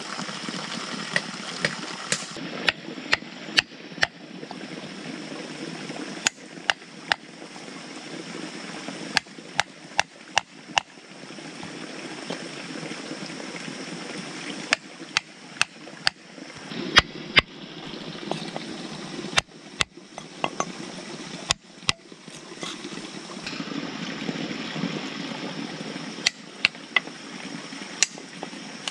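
A hammer knocking a chisel into a block of wood: sharp, irregular strikes, sometimes in quick runs. Running water hisses steadily underneath.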